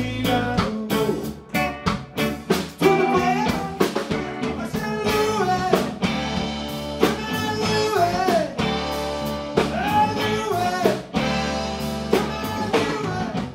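Live band playing: two electric guitars, electric bass and a drum kit keeping a steady beat.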